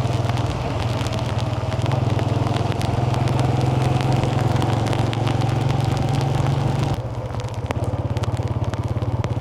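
A small engine running steadily, loud and close. About seven seconds in it drops slightly in level and takes on a faster pulsing beat. Scattered light clicks and crackles sound over it.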